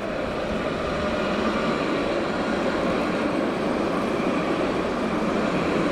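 Jerusalem Light Rail tram (Alstom Citadis) running past at close range on its street track, a steady rumble that grows louder over the first second or so and then holds.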